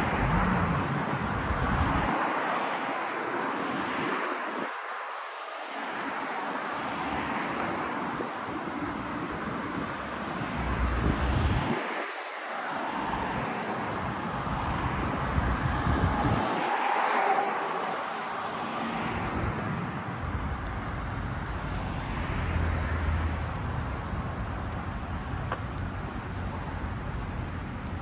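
Road traffic: cars passing one after another, their tyre and engine noise swelling and fading, loudest about a third of the way in and again a little past the middle.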